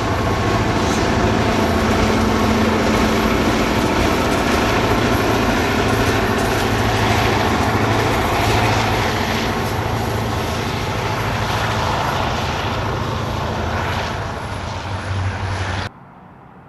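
Train passing close by: a loud, steady rumble of wheels and cars over a low engine hum, easing slightly, then cutting off abruptly near the end.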